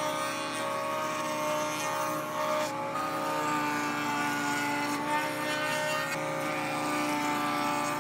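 Table-mounted router running at speed while plywood is fed against a bearing-guided bit to cut a recess. It makes a steady high motor whine whose pitch shifts slightly a few times as the cut loads it.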